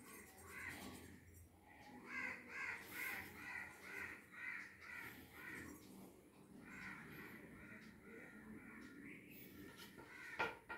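Crows cawing faintly in a steady run of calls, about two or three a second, then a second run after a short pause. A couple of sharp knocks come near the end.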